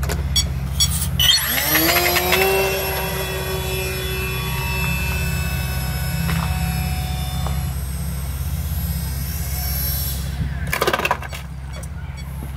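Electric motor and propeller of a radio-controlled foam triplane whining, rising in pitch about a second in as the throttle opens, then running steadily until it cuts off near the end. A short clatter of knocks follows as the plane touches down on the asphalt, over a steady low rumble.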